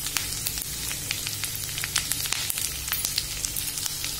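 Hot oil and ghee sizzling in a kadhai as a tadka of mustard seeds, cumin, chopped garlic and fresh curry leaves fries, with steady hissing and many small crackles and pops.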